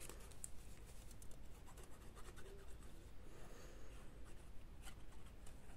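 Faint scratching and rubbing of a plastic glue-bottle nozzle spreading liquid glue over a small piece of paper, with light ticks of paper being handled.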